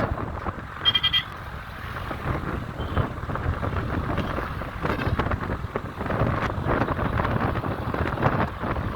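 Road traffic running past, with wind buffeting the microphone, and a short horn toot about a second in.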